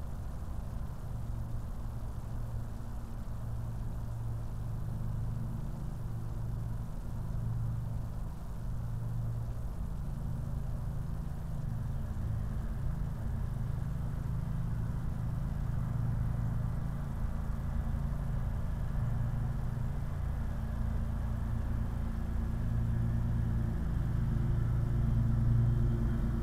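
Steady low mechanical rumble with a humming, engine-like tone, growing slightly louder near the end.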